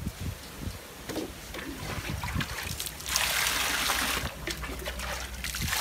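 Water poured from a bowl into a steel basin, a loud rushing splash starting about three seconds in and settling into a lighter pour. Before it, light splashes and drips of water in the basin.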